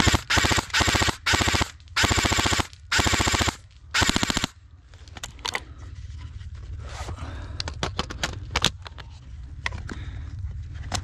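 Airsoft rifle firing on full auto: about six short rapid bursts in the first four and a half seconds, then scattered quieter sharp clicks.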